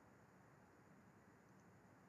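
Near silence: faint, steady hiss of room tone.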